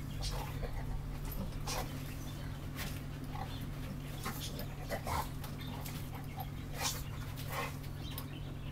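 Dogs whimpering and panting in short, scattered sounds over a steady low hum.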